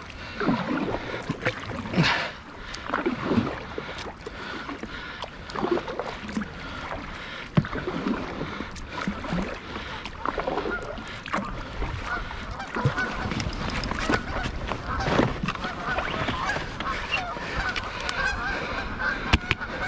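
A flock of Canada geese honking, many calls overlapping into steady chatter in the second half, with a single sharp crack about seven and a half seconds in.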